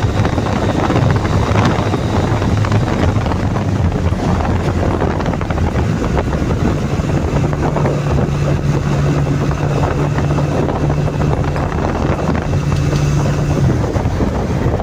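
Honda CD200 Roadmaster's air-cooled parallel-twin four-stroke engine running steadily under way, with wind buffeting the microphone. The engine note holds a little higher from about halfway through and drops back near the end.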